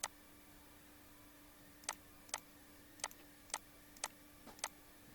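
Computer mouse button clicking: seven short, sharp clicks, spaced about half a second to a second apart, over a faint steady hum.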